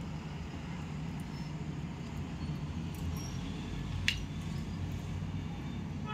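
Steady low background rumble, with a few light clicks from a plastic spoon smoothing thick paste in a steel bowl, the sharpest about four seconds in.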